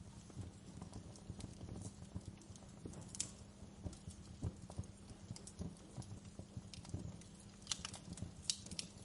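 Wood fire crackling in a fireplace: a steady low sound of the flames with irregular small crackles and pops throughout. Sharper snaps come about three seconds in, and a cluster of them near the end.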